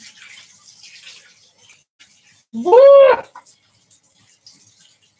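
A tap runs faintly. About halfway through comes a short, loud, high-pitched vocal cry whose pitch rises and then falls.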